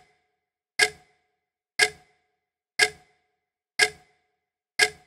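Ticking-clock sound effect: a sharp tick once a second, five in all, each with a brief ringing tail. It counts off the time given to write the spelling answer.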